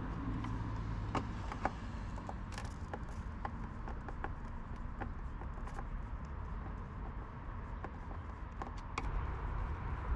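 A screwdriver working the screws of a truck trailer's plastic rear combination lamp, giving small, irregular clicks and ticks, over a steady low background rumble.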